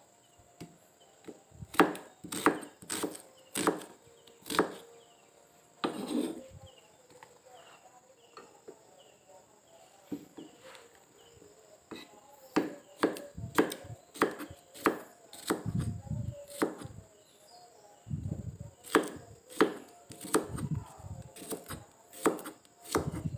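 Kitchen knife chopping shallots and garlic cloves on a wooden cutting board: sharp knocks in irregular runs of a few strokes with pauses between them, and a few deeper, duller thuds in the second half.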